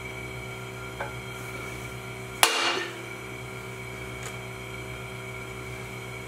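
One sharp metallic hammer strike on steel with a short ring, about two and a half seconds in, with a faint click before it and a light tick after, over a steady background hum.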